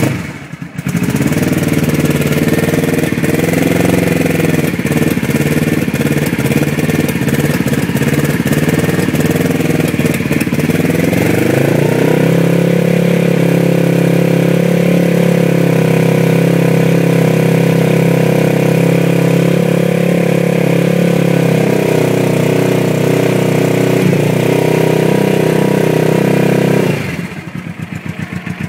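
1979 Suzuki GS425's parallel-twin engine running cold on choke, at first at an uneven fast idle. About twelve seconds in the revs rise to a higher steady speed, which dips and climbs again briefly, then falls back to idle near the end.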